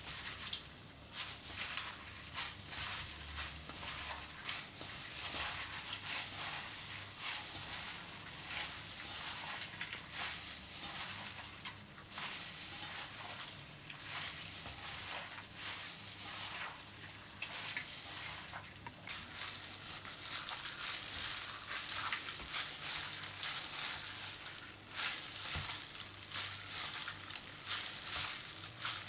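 Gloved hands squeezing and kneading orange flesh in a stainless steel bowl: wet squelching and the crinkle of thin plastic gloves, an uneven crackly sound that swells and eases with each squeeze.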